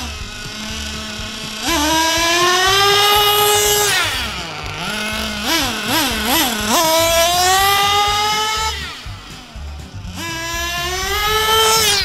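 Fuel-powered RC buggy's small two-stroke engine revving to a high-pitched whine in several runs of acceleration, the pitch climbing steadily through each run. About halfway there are three quick throttle blips before it climbs again.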